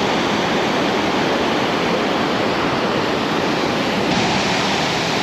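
Steady loud rush of a mountain river in spate, swollen by overnight rain.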